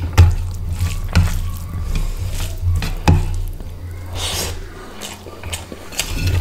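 Wet squishing and sticky clicks of fingers mixing rice and fish curry on a steel plate and scooping it up, with a mouthful taken and chewed partway through, over a steady low hum.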